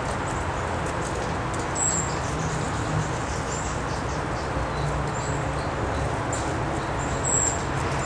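Small songbirds giving a few short, very high, thin chirps, the clearest two about two seconds in and near the end, over steady background noise.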